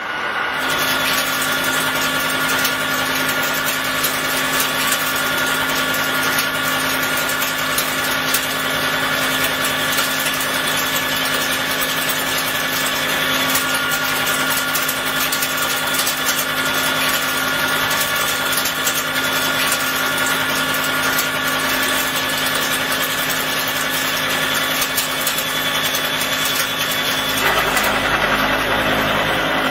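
Disc milling cutter on a CNC milling machine face-milling a C45 steel block: a steady, loud machining sound of spindle whine and cutting noise with several held tones. Near the end the sound changes, fuller and lower, as another cut takes over.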